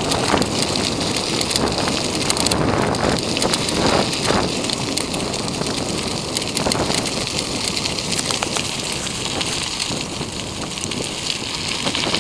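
Wind buffeting the microphone over the rolling rumble of riding fast along an asphalt path, with many small rattling clicks.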